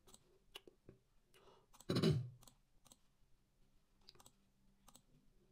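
Faint, scattered mouse clicks as menu items are selected in a web page, with a brief louder breath-like sound about two seconds in.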